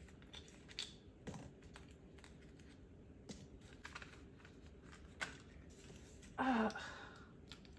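Scattered small clicks and taps of little plastic pieces being handled, like a mini toy figure and its packaging. A short vocal sound comes about six and a half seconds in.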